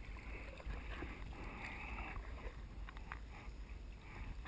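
Sea kayak being paddled: paddle blades dipping and splashing, with water lapping at the hull and a steady low rumble underneath.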